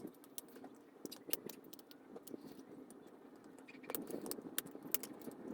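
Pry tool working around the housing of a Sky Devices Elite B5 smartphone to open it, a run of small sharp clicks and light scraping, thickest about four seconds in.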